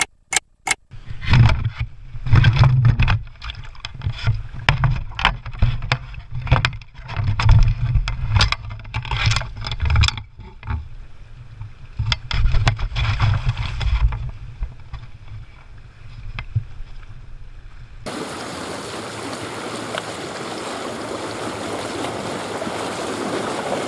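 A hooked channel catfish thrashing and splashing in a landing net at the water's surface, with heavy wind buffeting on the microphone. About 18 seconds in it changes to a steady wash of wind-driven waves breaking on the rocky shore.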